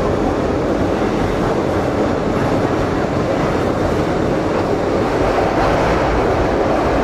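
Pyongyang Metro train running in its deep tunnel, heard from inside the carriage: a steady, loud rolling noise of the wheels on the rails.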